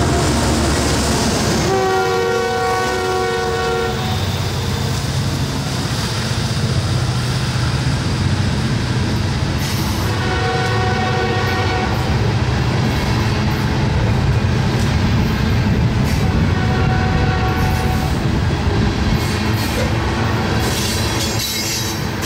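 Diesel freight train passing, its locomotive horn sounding three separate blasts of about two seconds each over a steady rumble of engines and wheels on the rails.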